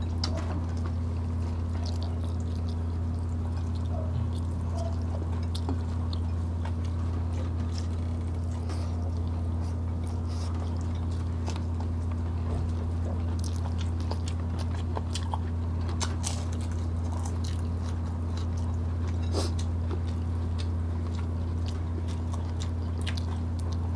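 Close-up eating sounds: chewing, small mouth smacks and fingers handling grilled chicken and rice, heard as scattered short clicks. Under them runs a steady low hum, the loudest sound throughout.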